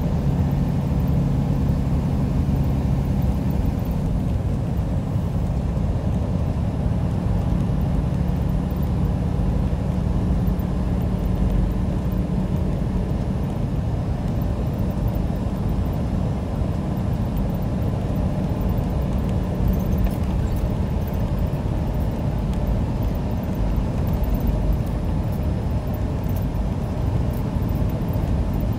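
Steady engine drone and tyre noise inside a semi-truck cab cruising at highway speed, with a low hum that comes and goes.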